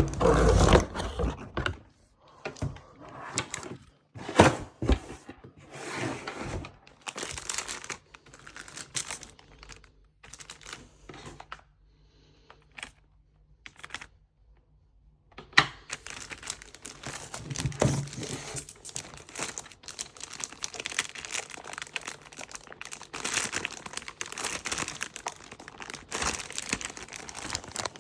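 Keyboard packaging being handled and unwrapped: irregular crinkling and rustling with a few sharp knocks, a brief pause about halfway, then steadier rustling.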